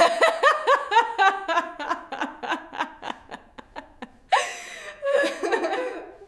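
A woman laughing: a fast run of ha-ha pulses, about four a second, that gradually fade, then a breathier burst of laughter about four seconds in that stops abruptly.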